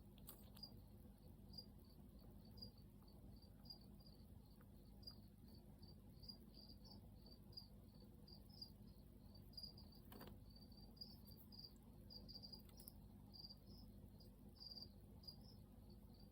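Feeder crickets chirping faintly, short high chirps repeating about three times a second.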